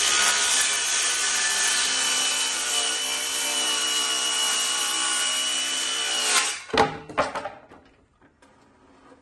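DEWALT 20V MAX 6-1/2-inch cordless circular saw cutting through a wooden board. The motor runs with a steady high whine for about six and a half seconds, then the blade winds down. A few sharp knocks follow.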